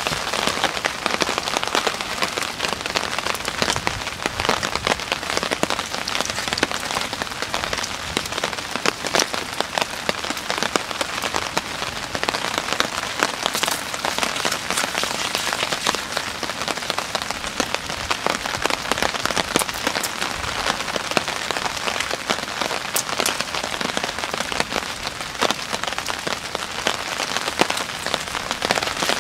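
Heavy rain falling on a tarp overhead: a steady, dense patter of drops.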